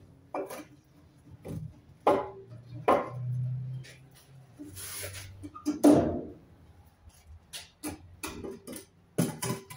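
Irregular knocks and clanks of a metal prop being handled and stood upright to brace a patio roof.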